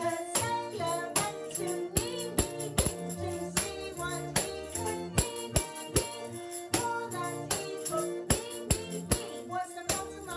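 A recorded children's song with singing and a steady beat, with a tambourine struck and jingled along in time, about two to three hits a second.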